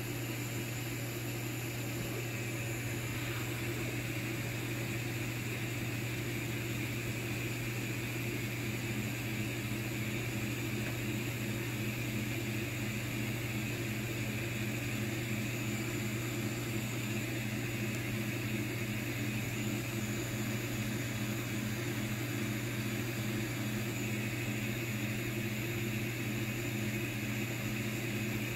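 Longer Ray 5 10 W diode laser engraver running an engraving job: a steady mechanical hum and whir. From about a third of the way in, a regular pulsing of about two a second runs under it.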